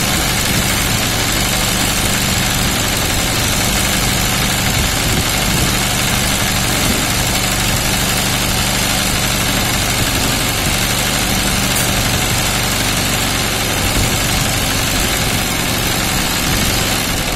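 Sewing machine running steadily at speed, its needle stitching free-motion embroidery through hooped fabric.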